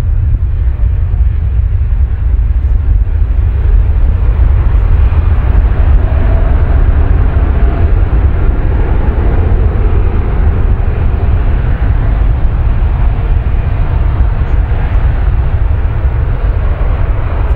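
Boeing 787-9 Dreamliner's GEnx-1B turbofan engines at high thrust on the takeoff roll: a loud, steady low rumble with a broad roar above it that builds slightly a few seconds in.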